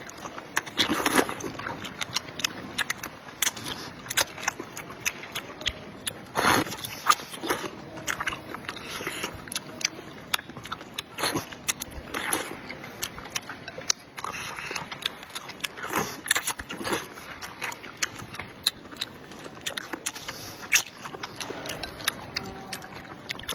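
A person eating at close range: chewing and biting with many small, irregular wet mouth clicks and a few longer slurp-like sounds.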